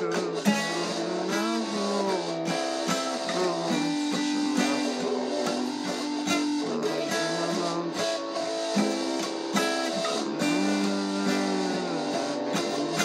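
Acoustic guitar being played, with ringing notes and chords, some of them bending in pitch.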